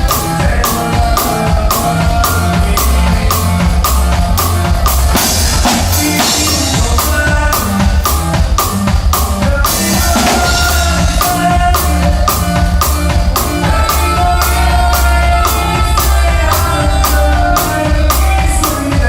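Conjunto band playing a song at a steady beat, with drum kit, bass and melody instruments.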